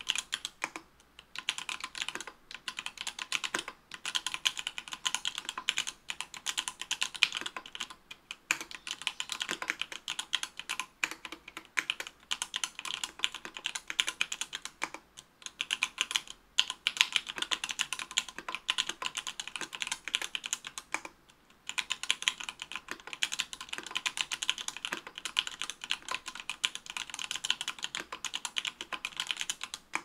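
Steady fast typing on an Octagon V3 mechanical keyboard with stock, unlubricated Everglide Amber Orange 58 g linear switches in an aluminium plate, under GMK keycaps: a rapid stream of keystroke clacks broken by a few short pauses, the longest about 21 seconds in.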